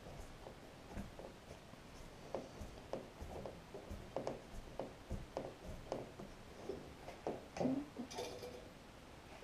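Faint, irregular clicks and knocks of hands handling plastic and brass plumbing valves and fittings, with one brief louder rub about eight seconds in.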